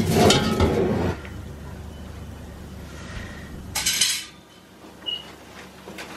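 Spatula scraping and knocking against a frying pan while turning dough balls in shallow frying oil. The loudest scraping comes in the first second, with another short scrape around four seconds in.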